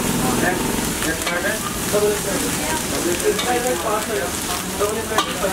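Steady sizzling of food frying, with the crinkle of wrapping paper as a roll is wrapped and a sharp click about five seconds in.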